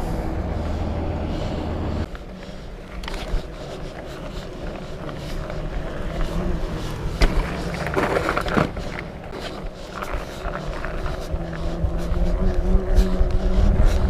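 Fat bike being ridden: the wide tires roll over rough ground with a steady low rumble, broken by frequent rattles and knocks from the bike, louder near the end.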